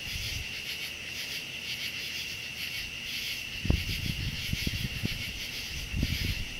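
Steady chorus of night insects, a continuous high chirring. A few low bumps and rumbles come in about halfway through.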